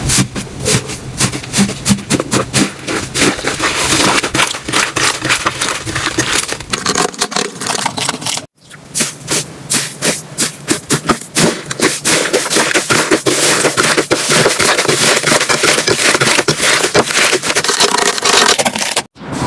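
Slime being squeezed and pressed by hand, making dense, irregular crackling and popping clicks. The sound breaks off for a moment about eight seconds in and again near the end, then starts up again.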